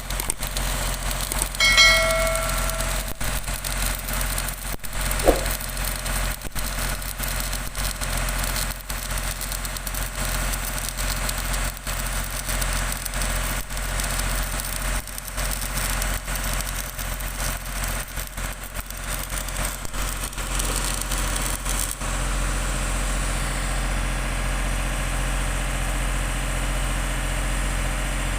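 Electric arc welding on a steel pipe flange: a dense, irregular crackle over the steady mains hum of the welding machine. A brief ringing tone sounds about two seconds in, and the crackle stops about 22 seconds in, leaving the steady hum.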